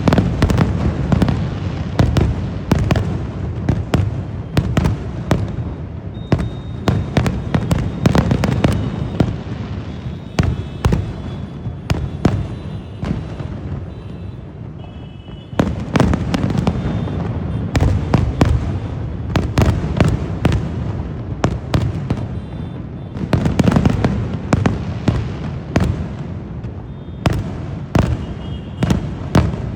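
Fireworks going off: many sharp bangs in quick succession over a low rumble, easing off briefly about fifteen seconds in, then starting again at full strength.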